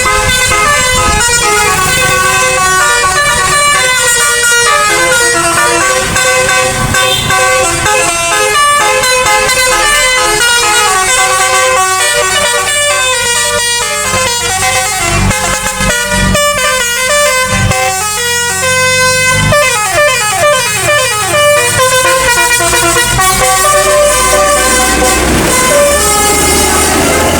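Bus telolet, a multi-tone musical air horn, playing a long run of quick, stepped melodies, with a stretch of sliding notes about two-thirds in. The bus engine runs underneath.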